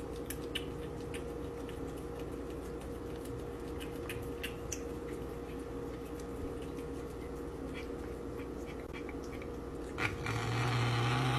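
A cat chewing and licking a small treat held in someone's fingers: faint, irregular little clicks over a steady low hum. About ten seconds in, a louder, deeper steady hum starts.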